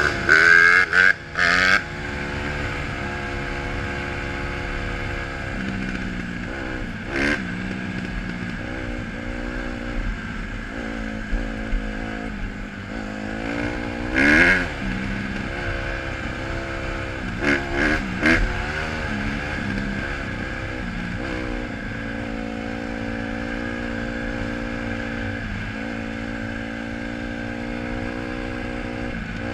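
Honda CRF150R dirt bike's single-cylinder four-stroke engine running while riding, its note rising and falling with the throttle. There are a few short, louder bursts: near the start, about halfway through, and shortly after.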